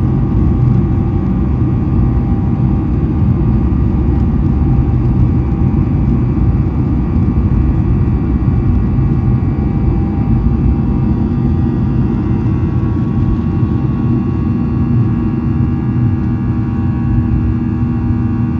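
Boeing 737-800 jet engines running under power: a loud, steady rushing noise with several steady whine tones over it. A lower steady tone comes in about twelve seconds in.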